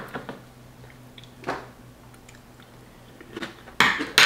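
A person chewing a mouthful of Cookie Crisp cereal with milk, with a few short noisy mouth sounds. Near the end comes a louder clatter as a metal spoon is laid down on a wooden cutting board.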